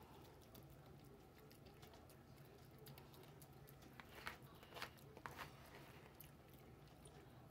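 A raccoon eating and licking soft food off a hand-held paper plate: faint wet licking and smacking sounds, with a few short clicks bunched between about four and five and a half seconds in, over near silence.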